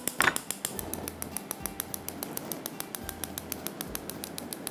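Gas hob's spark igniter clicking rapidly and evenly, about six or seven clicks a second, as the burner is lit. A short louder sound comes just after the start.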